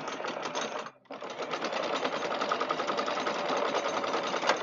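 Electric anchor windlass hauling in chain, with a fast, loud clatter of links. It stops for a moment about a second in, then runs again until just before the end, where there is one sharp click.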